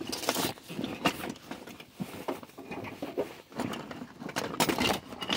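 Hand tools clinking and clattering against each other as a hand rummages through a soft fabric tool bag, with the rustle of the bag's cloth; an irregular run of clicks and knocks.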